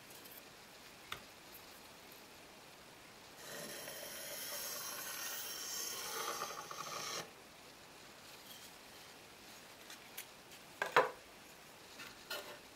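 A pencil in a wooden compass scratching across a pine board as it sweeps an arc, a steady scrape lasting about four seconds. Near the end come a few light, sharp wooden knocks.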